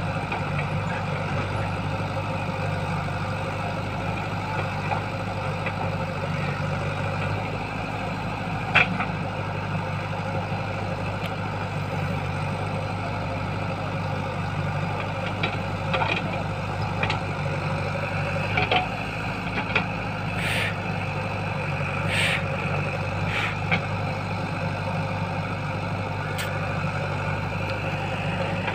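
JCB 3DX backhoe loader's diesel engine running steadily as the backhoe arm digs and swings, with a few sharp clanks and short high squeals from the working arm and bucket, more of them in the second half.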